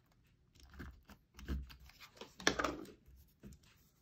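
Markers being handled over a sheet of graph paper on a desk: a few short rubbing and clicking sounds, the loudest about two and a half seconds in.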